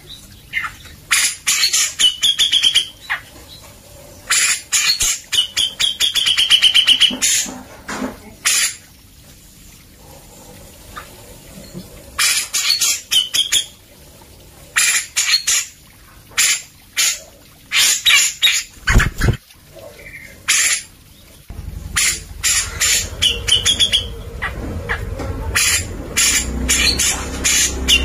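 Grey-cheeked bulbul (cucak jenggot) singing in a cage: bursts of rapid, harsh chattering notes, each a second or two long with a short wavering whistle, repeated about six times with short pauses. This is the sustained full song ('gacor') used as a training recording for white-rumped shamas.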